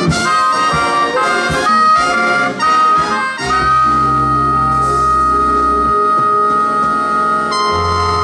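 A band playing music. It starts with quick, short notes for about three seconds, then moves to long held chords, with a sustained high note over a steady low bass.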